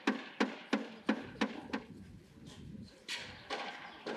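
Hammering during roof repair: sharp blows about three a second, stopping about two seconds in. A few softer, irregular knocks follow near the end.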